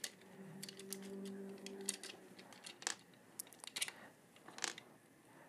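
Light scattered clicks and taps of plastic parts being handled as a 3D printer's hotend fan and cover piece are taken off. A faint steady hum runs for about the first two seconds.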